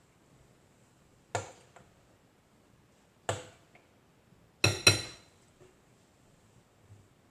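Kitchen utensil clinking against a saucepan of cooking no-bake cookie mixture: four sharp clinks, the last two in quick succession about two-thirds of the way through, the last ringing briefly.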